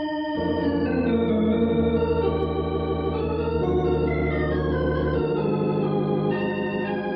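Organ music playing a bridge between radio-drama scenes: held chords with a wavering vibrato over sustained bass notes, the chord changing several times.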